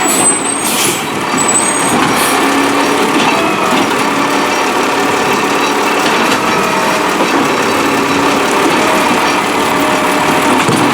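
Peterbilt 320 garbage truck with a New Way Rotopac body running steadily, with a few short air hisses in the first couple of seconds.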